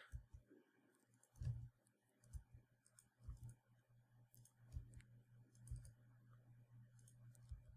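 Near silence with faint scattered clicks from a computer mouse and keyboard in use, over a low steady hum.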